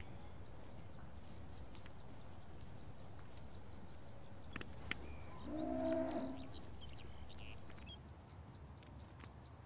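Pasture ambience over a steady low rumble: a bird gives a fast run of high chirps, about six a second, in the first few seconds, and about halfway through a cow gives a short low moo.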